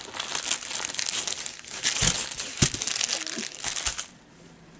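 Clear plastic packaging crinkling and crackling as it is handled, with many sharp crackles. These are packs of diamond-painting drills being pulled out of a fabric drawstring bag. The crinkling stops about four seconds in.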